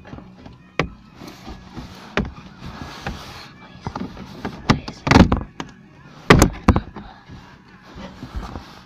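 Irregular knocks, bumps and rubbing of someone shifting about inside a cardboard box, with the phone brushed against the cardboard; the loudest bumps come twice just past the middle.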